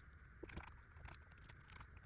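Near silence with a sharp click at the very start and a couple of faint ticks about half a second in, from small parts and tools being handled on a keyboard that is being taken apart.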